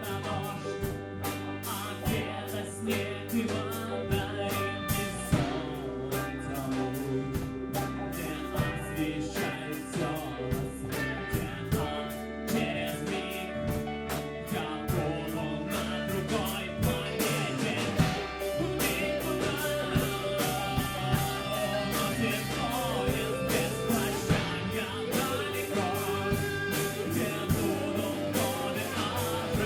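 Rock band playing a song: guitar and drums with a steady beat, and a voice singing.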